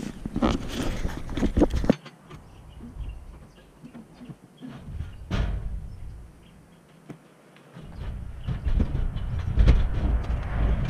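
An old refrigerator being tipped and heaved into a steel wire-mesh cage trailer, with metal clattering, scraping and banging, loudest in the last few seconds. A single knock comes about five seconds in.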